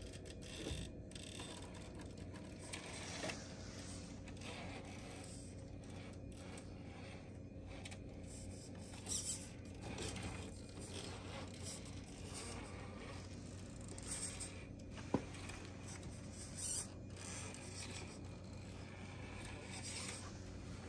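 Small electric motor and geared drivetrain of an RC rock-crawler truck running faintly, with its tyres scraping and grinding over stone and a few short knocks, one sharp click about two-thirds of the way through.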